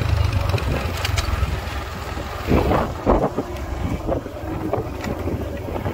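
Motorcycle running along a rough dirt track, with wind buffeting the microphone and a few knocks about two and a half to three seconds in.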